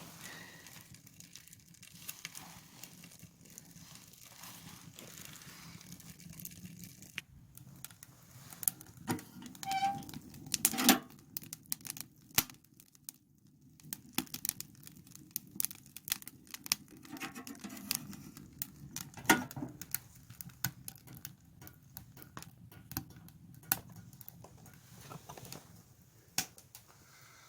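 Wood fire in a small ammo-can stove crackling and snapping irregularly, with rustling and a few louder knocks.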